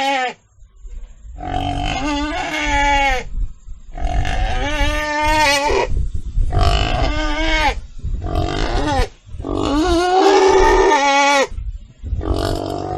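Pig calling in a series of about six drawn-out, wavering squeals, each a second or two long with short breaks between them.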